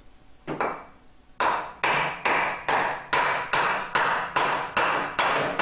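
Hammer blows, cushioned, striking the rear of a 4L60 automatic transmission's output shaft to drive the low and reverse roller clutch assembly out of the case. A light tap comes first, then about a second and a half in a steady run of strikes starts, roughly two to three a second.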